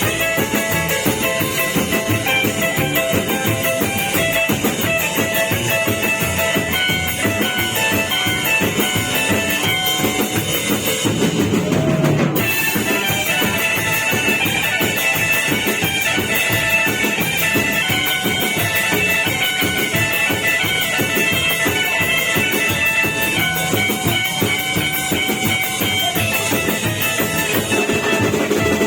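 Rock band music: a drum kit keeping a steady beat under guitar, with a brief break about twelve seconds in.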